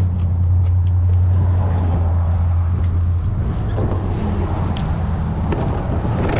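A steady low motor hum that stops about three seconds in, with a few faint clicks around it.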